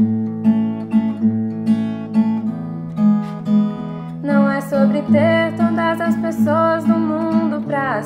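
Acoustic guitar strummed in a steady, gentle rhythm; about halfway through, a woman starts singing over it in Portuguese.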